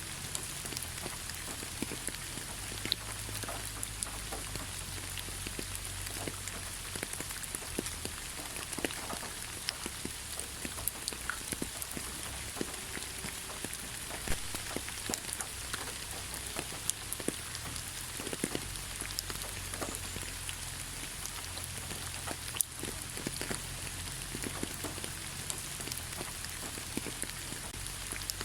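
Gentle rain falling on leaves: an even hiss of rainfall with many separate drops tapping at irregular moments.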